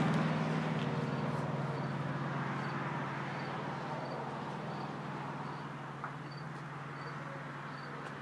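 A steady low mechanical hum that slowly fades, with a faint short high beep repeating about every two-thirds of a second.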